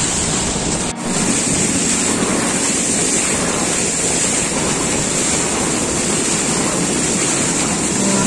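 Wind buffeting the microphone and water rushing past a moving boat, a steady even rush with a brief dip about a second in.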